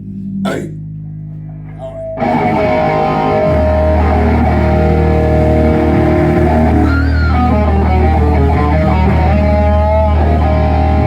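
Rock band's electric guitar and bass guitar playing through amplifiers during a sound check. A low note is held at first, with one click, then the playing comes in loud about two seconds in, with guitar notes bending.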